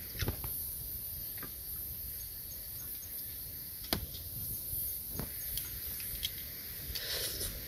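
A few short, light knocks and clicks, about four spread over several seconds, over a steady low rumble and a high hiss. These fit fishing gear being handled in a small boat.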